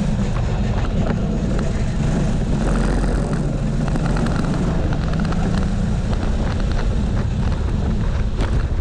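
Go-kart engine running at racing speed, heard from on board the kart; its note shifts up and down a little as the lap goes on.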